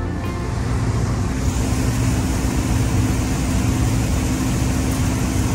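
Combine harvester running, a steady engine drone holding one pitch.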